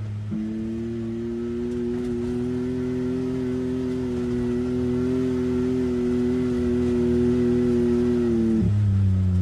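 Can-Am side-by-side engine under throttle. The revs jump up a moment in and hold almost level as the machine gathers speed, the sound slowly growing louder, then drop back down near the end as the throttle is eased off.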